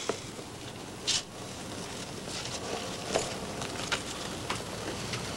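Paper pages of a brochure being handled and turned: a brief rustle about a second in and a few soft clicks, over a steady background hiss.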